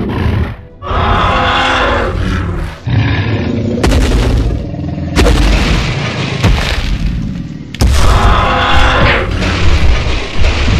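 Dubbed monster-fight sound effects: a series of heavy booms and crashes that hit suddenly, about a second in, near 4 and 5 seconds and again near 8 seconds, mixed with creature roars over background music.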